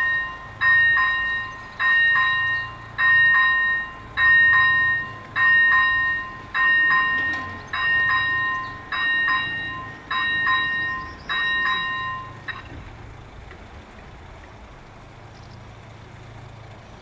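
AŽD-97 level-crossing warning bell ringing in regular strokes a little over a second apart, each stroke fading away, while the crossing is activated for an approaching train. It stops about twelve and a half seconds in, once the barriers are down.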